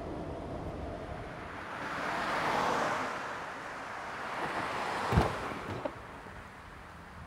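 Street traffic: a car passes with a rising and falling rush of tyres and engine, followed a few seconds later by a single sharp thump and a couple of faint clicks.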